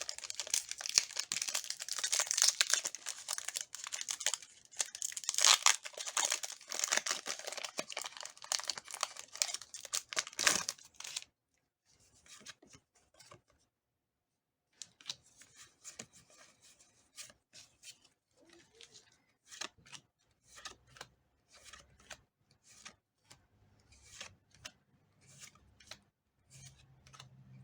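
Foil booster-pack wrapper being torn open and crinkled for about the first eleven seconds. After a short pause come soft separate flicks and clicks as the trading cards are slid through one at a time.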